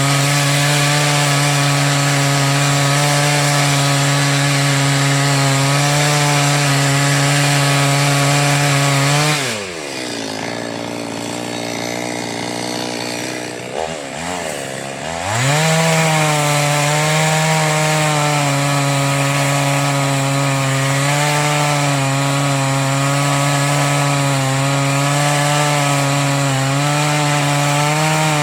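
Two-stroke chainsaw at full throttle cutting through wood. About ten seconds in the engine drops to idle for around six seconds, with one short blip of throttle, then revs back up and keeps cutting.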